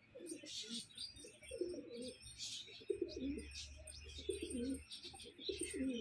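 Domestic pigeons cooing over and over in a loft, a low warbling coo about once a second, with short, higher bird chirps above them.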